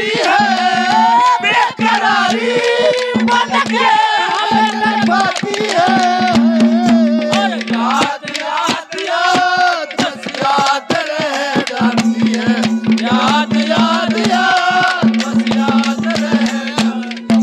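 Ragni folk band playing live: a wavering melody over a steady drone, with quick hand-drum strokes throughout. The drone drops out for a few seconds around the middle.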